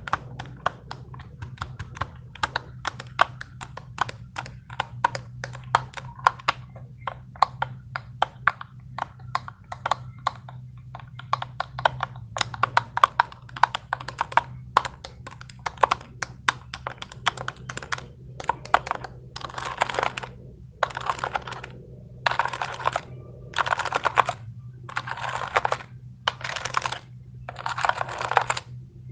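Fidget toys handled close to the microphone: rapid, irregular plastic clicking. About two-thirds of the way in, it gives way to longer noisy strokes roughly once a second, with brief gaps between them.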